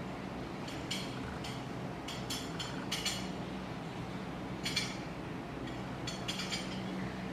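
Scattered light clinks and clicks, about a dozen in small clusters, over a steady low hum.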